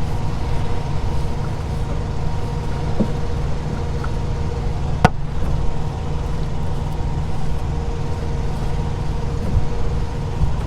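Steady low rumble of an idling diesel engine, with faint steady hum tones over it. A single sharp click about five seconds in.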